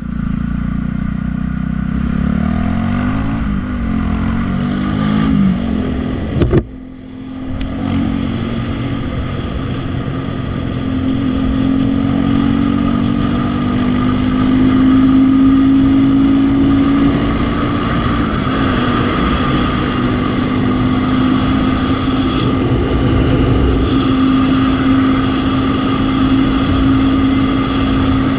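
Sundown Next 250 motorcycle engine running while riding: it revs up in rising steps through the first few seconds, then settles into a steady cruise with small changes in speed. A single sharp crack sounds about six and a half seconds in.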